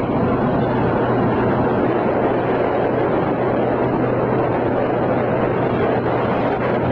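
Motorboat under way: its engine running with a steady low hum under a constant rush of wind and water noise.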